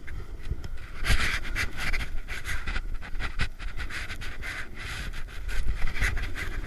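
A snowboarder panting hard while riding, a run of short breaths over the scrape of the board across packed snow and a low wind rumble.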